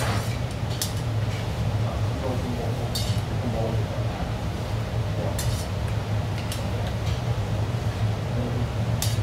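Slurping of noodles and broth from a stainless-steel bowl, with metal chopsticks clinking against its rim several times, over a steady low hum.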